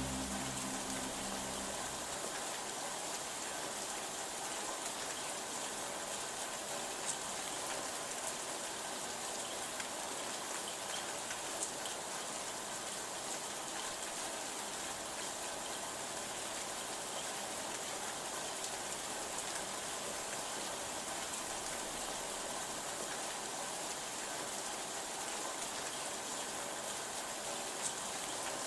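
Heavy rain falling steadily, an even hiss with the odd louder drop. Some low tones fade out about two seconds in.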